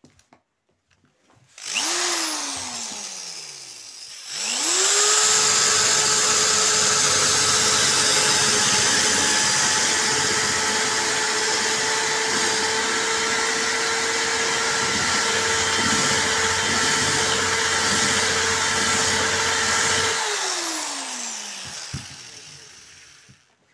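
Electric drill with a diamond-coated tube core bit drilling a mirror from its painted back side. A brief start that winds down is followed by a steady whine, with the bit grinding into the glass for about fifteen seconds, and the drill winds down near the end.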